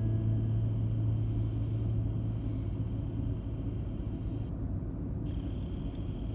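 Car cabin noise from a moving car: a steady low rumble of engine and road, with a low hum that slowly fades.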